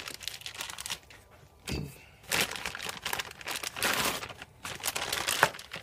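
Plastic bags crinkling and rustling in irregular bursts as a new piston is unwrapped from its blue plastic bag, with one sharp crackle near the end.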